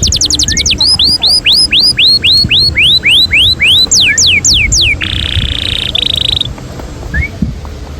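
A bird singing loudly and close. It opens with a fast trill of falling notes, moves into a run of slurred whistled notes at about four a second, then gives a few long falling whistles and a harsh buzz about five seconds in. A low rumble runs underneath.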